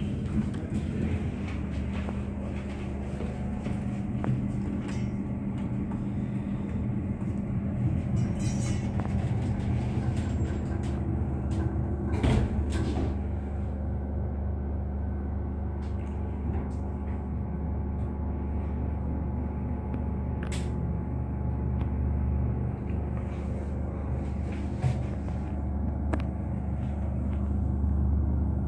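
Inside an original 1990s Thyssen elevator car: a steady low machine hum with scattered clicks and knocks. The hum grows stronger about halfway through as the car sets off and rides up.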